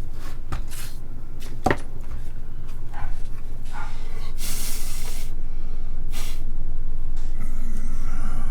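Brushing and handling noises from cleaning out the inside of a plastic computer case: a series of short scrapes and clicks, with one longer hissing brush stroke about halfway through, over a steady low hum.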